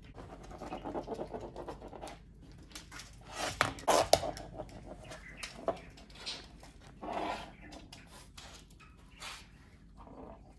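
Two small dogs, a Pomeranian and a Maltipoo, nosing and pawing at a whole egg on a wooden floor: soft scuffling and breathing sounds, with a few sharp taps about four seconds in, the loudest of them.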